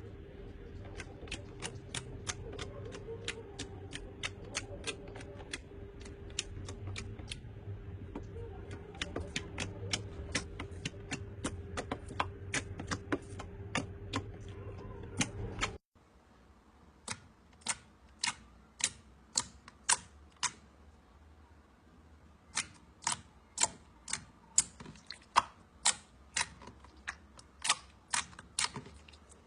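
Slime being pressed and played with by hand, a run of sharp little clicks and pops, about two to three a second. A low background hum cuts off about halfway through, after which the clicks go on more sparsely and some are louder.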